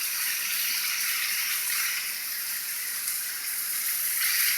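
Rushing water of a small waterfall and stream, a steady hiss that swells a little near the end.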